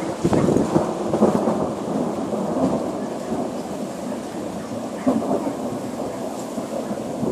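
Thunder rumbling, loudest in the first second or two and slowly dying away, with a fresh swell about five seconds in, over steady rain.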